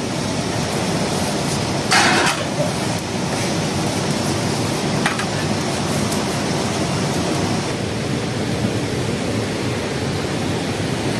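Steady rushing of a shallow rocky stream flowing over stones. About two seconds in there is one brief sharp noise, with a fainter one a few seconds later.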